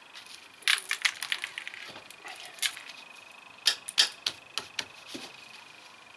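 Metal tools and parts clinking and clicking while being handled during a brake job, in irregular groups of sharp clicks, a rapid run about a second in and more near four and five seconds, over a faint steady high tone.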